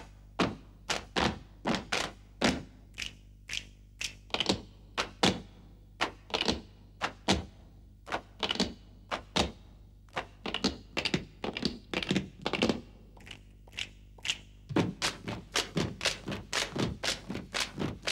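Footsteps of hard-soled boots on a hard floor: an uneven run of sharp clicking steps, about two to four a second, coming thicker near the end.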